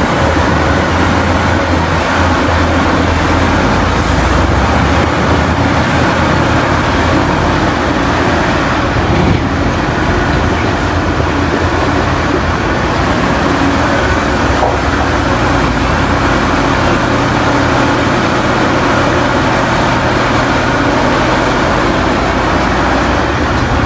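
Heavy diesel mining machinery running steadily: a loud low engine drone under a broad, even mechanical noise.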